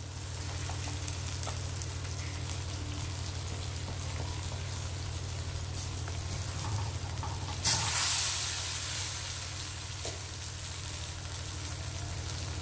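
Spices and vegetables frying in a pan: a steady sizzle with small clicks of stirring. About halfway through, the sizzle suddenly grows much louder, then dies back over a second or two.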